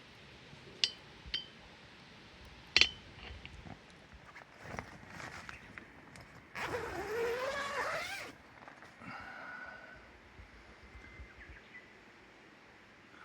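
A few sharp metallic clinks, then a drawn-out animal call of about a second and a half that wavers and rises in pitch.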